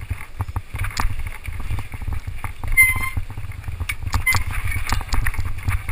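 Mountain bike rattling and knocking over rocks on a rough downhill trail, picked up through the GoPro's housing as a steady low rumble of wind and vibration full of sharp clatters.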